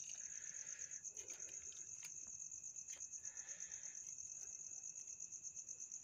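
A cricket trilling steadily in a high, rapidly pulsing note. Beneath it, a knife scrapes scales off a fish in a few short strokes, with a few light clicks.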